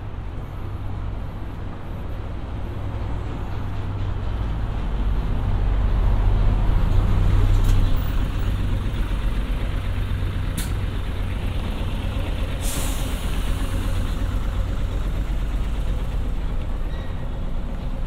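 City bus engine rumbling as it passes close by, swelling to its loudest and then easing off, with a short air-brake hiss about two-thirds of the way through.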